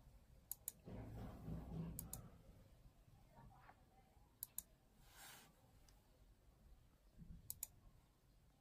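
Computer mouse button clicking faintly in quick pairs, four times a couple of seconds apart, with a brief hiss about five seconds in.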